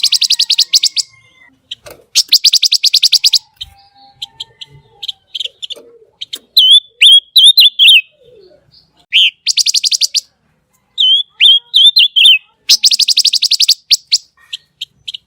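Pancawarna songbird singing at full volume: sharp whistled notes and phrases alternating with four fast, dry rattling trills about a second long each.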